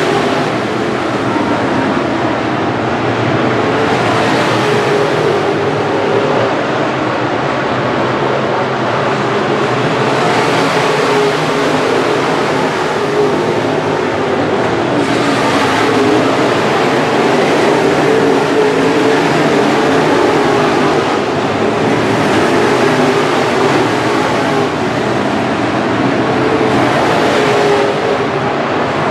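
A field of IMCA Modified dirt-track race cars running laps. Their V8 engines make a loud, continuous drone that swells every five or six seconds as the pack comes around.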